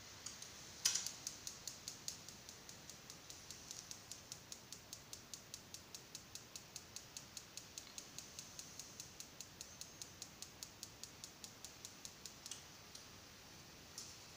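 Electronic spark igniter of an LPG gas fireplace clicking rapidly, about five sparks a second, during ignition. It begins with a louder click about a second in, stops near the end, and gives one more click shortly after.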